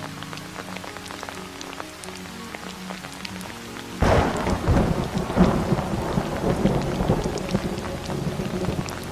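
Steady rain falling, with the tick of individual drops. About four seconds in a loud thunderclap breaks, then rolls on as rumbling thunder over the rain.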